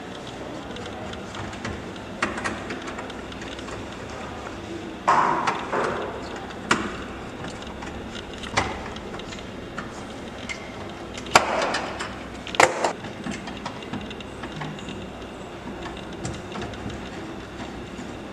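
Hands and tools at work on electrical wiring, connecting wires at a meter and fuse carrier: scattered clicks, knocks and short scrapes over steady background noise. The loudest come about five seconds in and about eleven seconds in.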